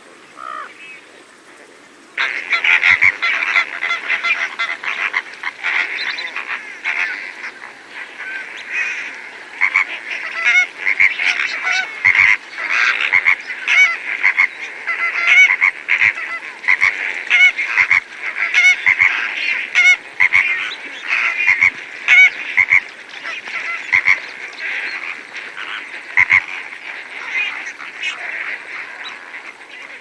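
A flock of greater flamingos with lesser flamingos, feeding and calling: dense, overlapping goose-like honking and gabbling. It starts abruptly about two seconds in, after a quieter moment with a single faint call.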